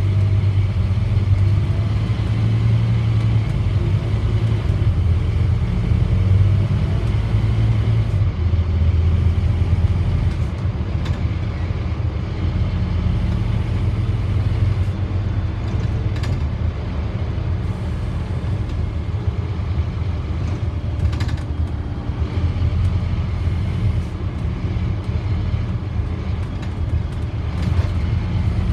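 Scania OmniDekka double-decker bus running, heard from inside on the upper deck: a steady low engine drone with road noise. The drone is a little louder for the first eight seconds or so, then eases slightly.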